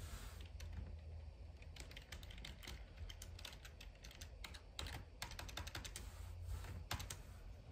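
Computer keyboard typing: faint, quick key clicks in short irregular runs.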